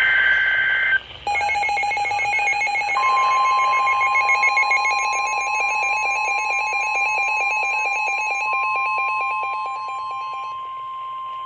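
Emergency Alert System tones. The end of a digital data burst, a shrill two-tone warble, lasts about a second. After a short break comes a fast-pulsing alarm beep, joined about three seconds in by a steady single alert tone. The pulsing stops shortly before the end while the steady tone holds on.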